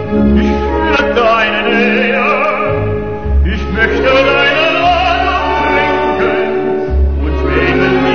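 Operatic singing with wide vibrato on long held notes, over instrumental accompaniment with a deep bass line.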